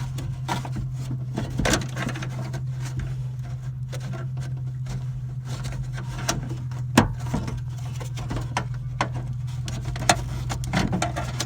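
Scattered small clicks and knocks of hands working at a stuck car door and its unclipped latch, with a sharper click about seven seconds in, over a steady low hum.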